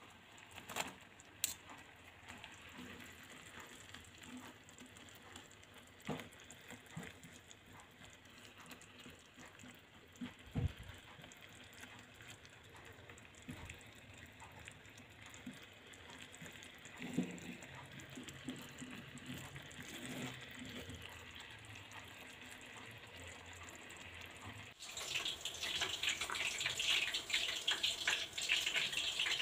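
Scattered knocks and clinks of a metal strainer and spatula against a nonstick frying pan as fried eggplant pieces are tipped into coconut-milk sauce and stirred. About 25 seconds in, a louder steady bubbling and crackling starts as the coconut-milk sauce boils.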